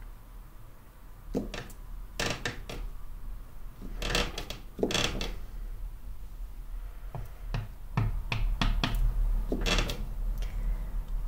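Wooden-block rubber stamp being pressed and knocked onto a paper planner page on a tabletop: a run of irregular wooden knocks and short scuffs.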